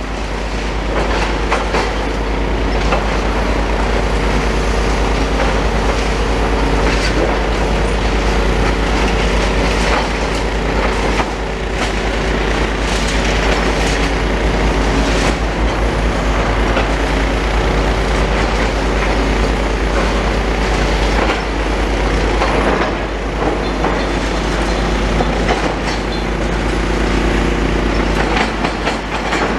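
Demolition excavator engine running steadily while its jaws chew into a brick wall, with irregular crunching and clattering of falling masonry throughout.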